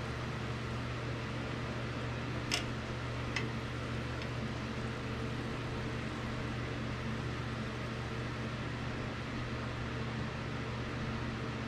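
Steady hum of a kitchen range-hood fan over a light hiss of squid sizzling on a hot stovetop grill pan. About two and a half seconds in there are two sharp clicks of metal tongs against the pan, with a fainter third soon after.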